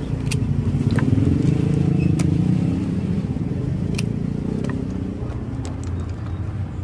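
Shells of rice-field snails being snipped with pliers: several sharp cracks at irregular intervals, about one a second. They sound over the steady low drone of a motor engine running, which is the loudest sound.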